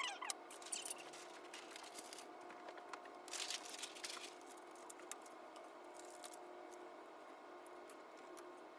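Fast-forwarded room sound: a steady hum with faint scattered clicks, and a brief scratchy rustle about three and a half seconds in.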